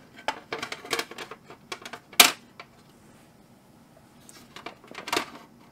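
Irregular clicks and knocks as a hard drive loose inside a sheet-metal NVR case is shifted to line its screw holes up with the case bottom. The loudest knock comes about two seconds in, then a short lull before a few more knocks near the end.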